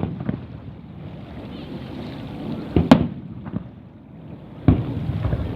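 Fireworks exploding overhead: a few sharp bangs, the loudest about three seconds in and another near the end, over a steady low rumble.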